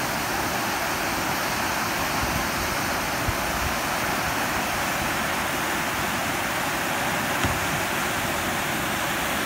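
Steady rush of river water pouring over a low weir into churning whitewater, with two brief knocks a few seconds apart.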